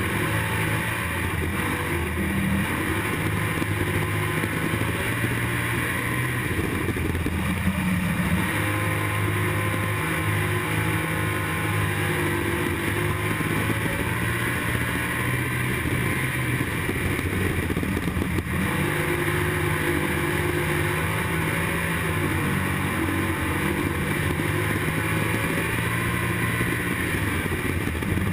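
IMCA Stock Car's V8 racing engine at race throttle, heard from inside the cockpit, its note rising and falling every few seconds as the car works through the turns of a dirt oval.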